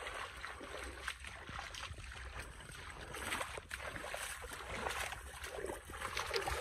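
Hands scooping and flinging mud and water in a shallow, muddy ditch, with irregular sloshing splashes, while searching the mud for fish.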